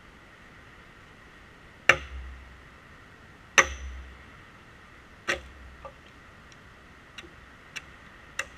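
Splitting maul (Fiskars X37) striking a red oak metre log to split it: three heavy blows about a second and a half apart, the second the loudest, the first two with a brief high ring. Several lighter clicks and knocks follow.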